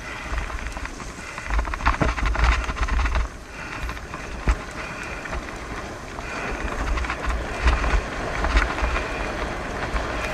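Bicycle tyres rolling over a gravel track, with wind buffeting the microphone in gusts and a few sharp clicks and rattles.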